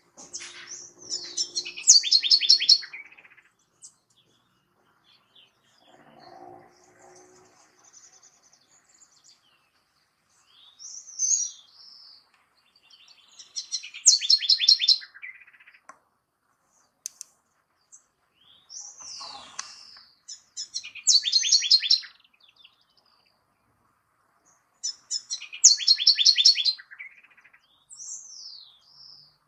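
A house wren (Troglodytes aedon) singing: four bursts of song a few seconds apart, each a few quick slurred notes running into a fast series of repeated notes, with a few short notes in between.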